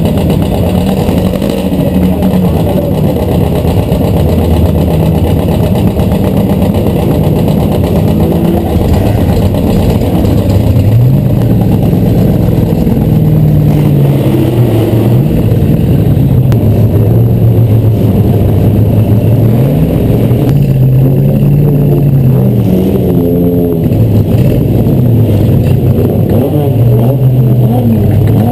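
The 1952 Streets Manning Special's Ford flathead V8 running loudly: a steady idle for about the first ten seconds, then revving up and dropping back several times as the car drives off through the gears.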